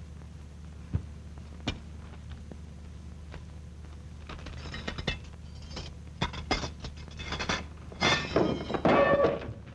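Hurried handling of things on a table: scattered clicks and clatter, then rustling of cloth and paper that is loudest near the end, where a large newspaper is snapped open. A steady hum from an old optical film soundtrack runs underneath.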